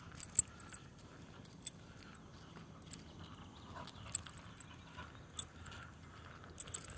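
Light metallic clinks and jingles at irregular intervals, the loudest about half a second in, from the dog's lead clip and collar hardware as the dog walks on a lead.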